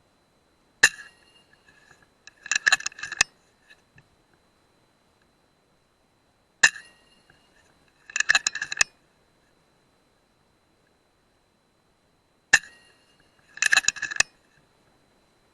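FX Dreamline .177 PCP air rifle fired three times, each a sharp crack with a brief metallic ring. After each shot comes a quick run of metallic clicks as the action is cycled to load the next pellet.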